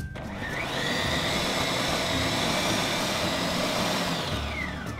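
Food processor motor spinning up about half a second in, running steadily with a high whine as it blends soy sauce, wasabi and xanthan gum, then winding down near the end as it is switched off.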